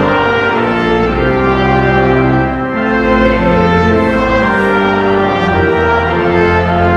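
A processional hymn in slow, sustained chords, with full instrumental accompaniment of a brass or organ-like tone. The robed choir and standing congregation sing along.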